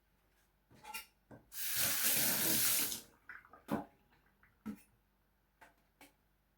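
A kitchen tap runs into a sink for about a second and a half, with a few short knocks and clatters before and after.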